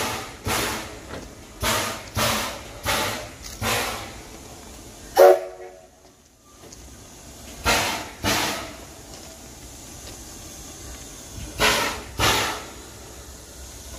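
Edison #1 steam locomotive chuffing slowly as it pulls away, its exhaust beats coming in pairs about half a second apart with gaps between. About five seconds in comes one short, loud tonal blast, the loudest sound.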